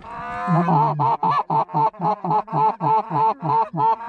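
Goose call blown in a rapid, even run of short honks, about four a second, after one longer opening note about half a second in.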